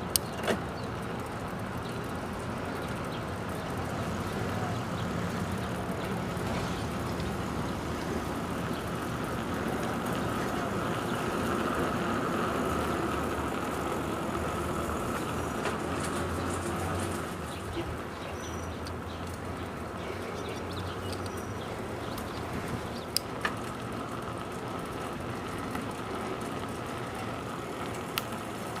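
Road traffic: a steady rush of passing cars that swells to its loudest about halfway through and eases a few seconds later. A few sharp clicks stand out over it.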